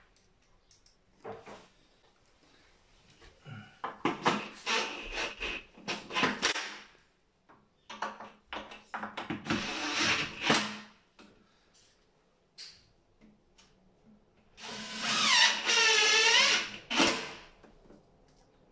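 Cordless drill-driver with a PZ2 screwdriver bit driving screws in three short runs, the last one a longer whine lasting about two seconds.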